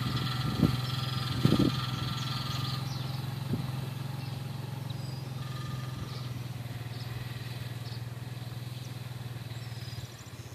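ATV engine running at a steady low speed as it tows a wheeled wooden deer stand away, gradually getting fainter. A couple of dull thumps come in the first two seconds.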